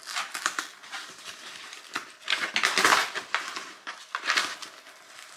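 Cardboard mailer box being torn and pulled open by hand, with the dog nosing at it: irregular ripping and scraping of cardboard, loudest about halfway through.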